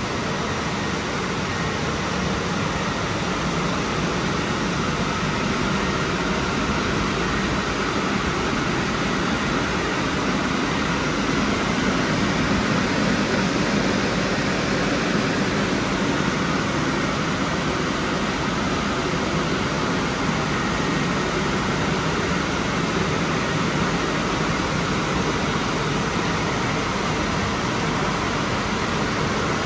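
Drying blowers of a WashTec SoftCare Pro rollover car wash running, a loud, steady rush of air during the drying stage of the wash.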